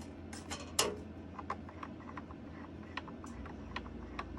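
Scattered light clicks and ticks of hands working a DJ mixer's crossfader and loose face plate, with one louder click just under a second in, while testing whether a rubbing noise comes from the plate.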